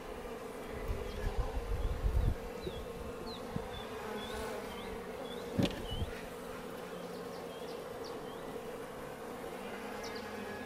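Honeybees buzzing steadily around an opened hive. Low thumps and rustling come in the first couple of seconds, a sharp knock about five and a half seconds in, and a run of faint short high chirps in the middle.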